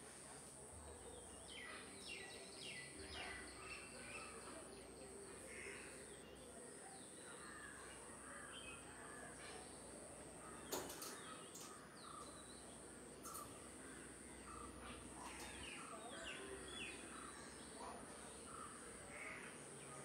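Faint outdoor ambience of scattered short bird calls and chirps, over a steady high-pitched whine broken by regular brief gaps; a single sharp click about eleven seconds in.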